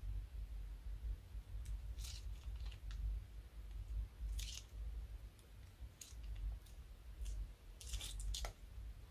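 Slime squeezed out of a plastic piping bag, giving scattered short crackling squelches, with the densest cluster near the end.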